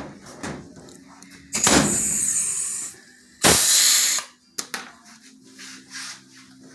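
Pneumatic pull-rivet gun setting blind rivets: two bursts of compressed-air hiss, each about a second long, the first starting about a second and a half in, with small clicks around them.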